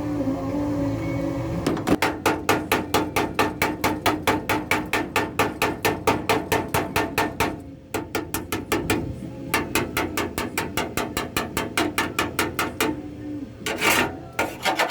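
Rapid, even hammer strokes, about five a second, in two long runs with a short pause between them and a brief louder flurry near the end.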